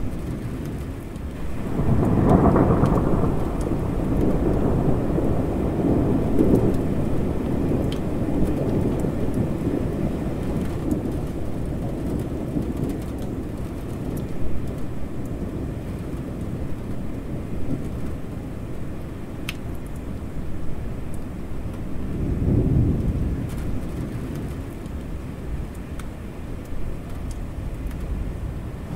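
Thunderstorm: steady rain with thunder rumbling low over it. A strong peal comes about two seconds in and rumbles on for several seconds, and another roll of thunder follows near the end.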